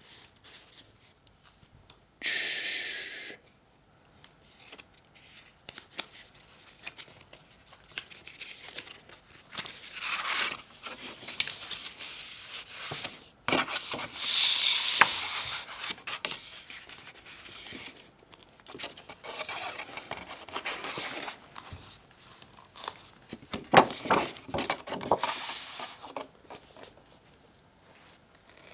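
Paper and cardboard packaging of an Apple Watch Ultra box being opened by hand: a loud tearing rip lasting about a second, about two seconds in, then stretches of paper rustling, cardboard rubbing and sliding, and a few light taps as the box and its folded inner packaging are opened.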